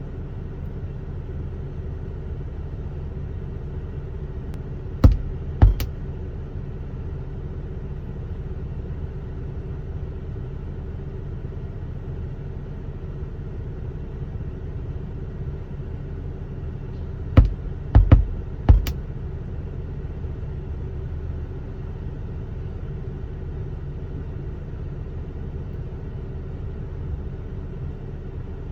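Sudden loud booms from the Volkswagen Tiguan's speakers, two about five seconds in and four close together around seventeen to nineteen seconds in, over a steady low hum in the cabin. The booms are the fault sound of the RNS 510 head unit, which keeps rebooting.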